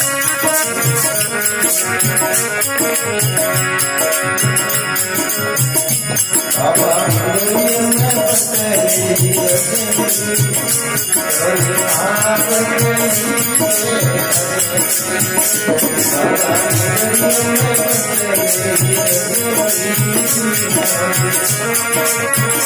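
Hindi devotional bhajan music for Hanuman: a steady rattling percussion beat under a keyboard melody, joined about six seconds in by a gliding, ornamented melodic line.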